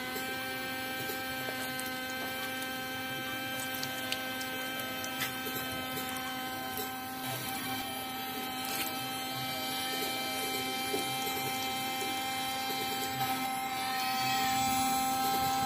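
Small electric water pump running with a steady buzzing hum, a little louder near the end.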